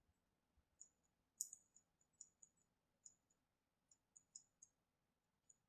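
Faint, irregular ticks and scratches of an X-Acto knife blade scribing a tiny orientation mark on the piston crown of a Thunder Tiger Pro 46 glow engine, a dozen or so short high clicks with the sharpest about a second and a half in.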